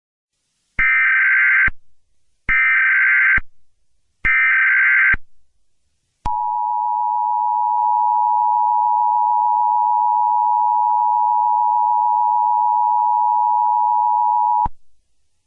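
Emergency Alert System alert opening. Three short buzzing bursts of SAME header data come about a second and a half apart. About a second later the steady two-tone EAS attention signal starts and holds for about eight seconds, then cuts off. Together they announce a severe thunderstorm warning.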